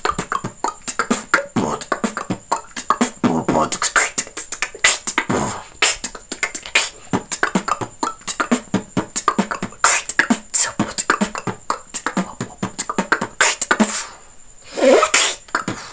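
Beatboxing: a fast, dense rhythm of mouth-made clicks and beats, stopping about 14 seconds in, then one louder, pitched vocal sound near the end.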